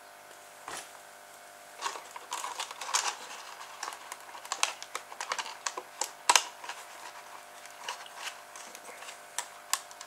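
Irregular clicks, taps and crackles as a thin plastic drinks-bottle hull and a strip of corrugated plastic (Corex) are handled and pressed together, busier from about two seconds in, with one louder click near the middle.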